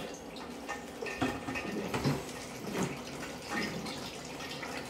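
Water running from a bottled-water dispenser's tap into a stainless steel bowl of ground spices, a steady pour.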